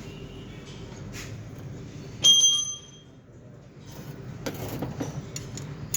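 A metal tool clinks against metal with a short ringing note about two seconds in, followed by small scattered clicks and taps: hand work on the valve tappets of a stopped engine.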